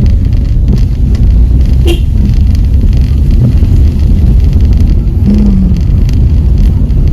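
Steady, loud low rumble of a vehicle under way, with one brief click about two seconds in.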